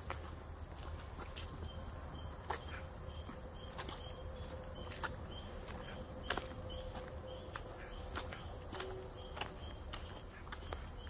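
An insect chirping in short high notes, about three a second, over irregular footsteps on a trail.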